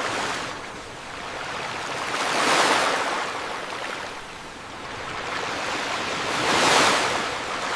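Ocean surf: waves washing onto a beach, swelling and fading twice, about four seconds apart.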